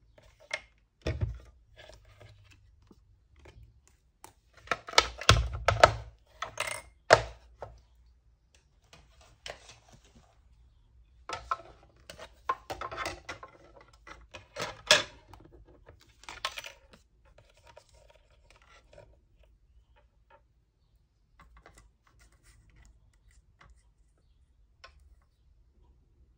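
Knocks and plastic clatter of a Stampin' Up mini die-cutting machine and its plastic cutting plates being set down, stacked and run through the rollers to cut a paper cup shape, loudest a few seconds in. Only faint scrapes and ticks follow near the end.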